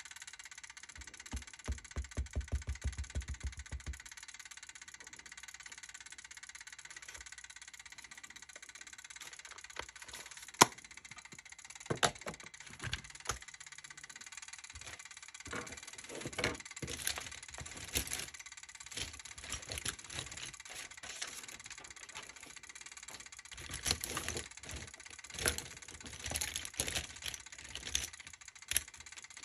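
Wooden-mounted rubber number stamp and ink pad being handled on a tabletop. A quick run of soft, regular taps comes early on, then scattered sharp clicks and knocks, one much louder than the rest, over a steady background hiss.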